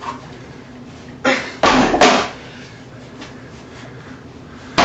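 Two forceful breaths of a man straining to lift a heavy weight plate: a short one about a second in, then a longer one just after.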